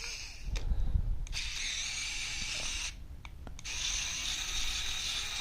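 Strebito electric precision screwdriver with a T10 Torx bit whirring on power setting 3 as it works a tight screw. It runs for about a second and a half, stops briefly with a couple of clicks, then runs again. A few handling knocks come before the first run.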